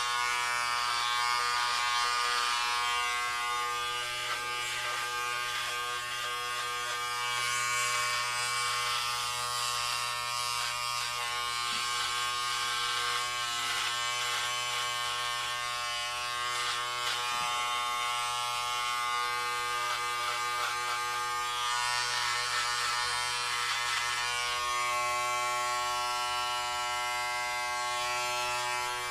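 Electric hair clippers running with a steady buzz while cutting hair, the blades adding a rustling hiss that swells and fades as they pass through the hair.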